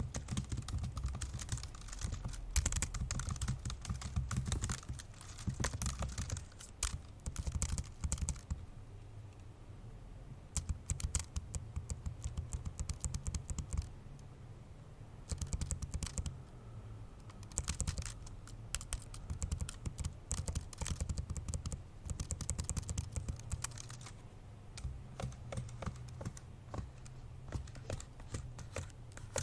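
Fast, forceful typing on an old MacBook Pro's built-in keyboard: dense runs of key clicks broken every few seconds by short pauses.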